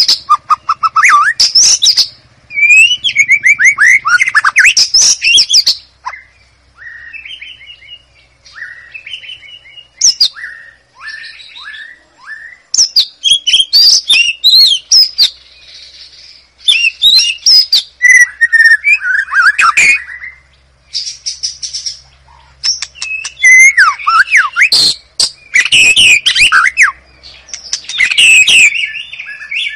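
White-rumped shama (murai batu) singing: loud phrases of rich whistles and fast chattering notes, alternating with quieter passages of short falling notes.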